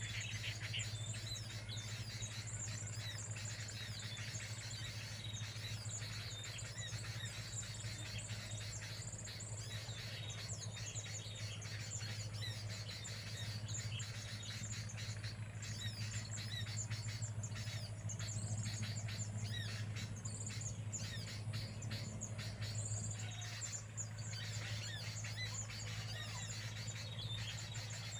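Birds chirping in a dense, continuous run of quick calls, over a steady low hum.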